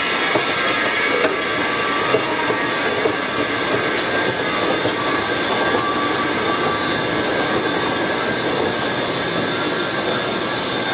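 Steady running noise of a vehicle in motion, with faint high steady tones and scattered light clicks throughout.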